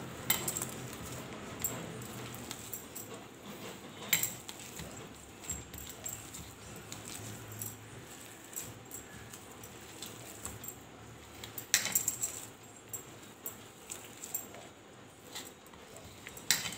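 A hand mixing and kneading mashed potato with soaked flattened rice in a steel plate: irregular soft squishing and rustling, with several sharp metallic clinks against the plate, the loudest about 4 and 12 seconds in.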